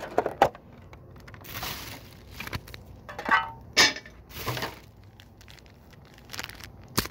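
Foil Pokémon booster-pack wrappers crinkling and crackling in hand, in irregular short bursts, with a sharp crack near the end.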